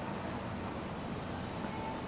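Faint steady background noise with no distinct event: room tone during a pause in talk.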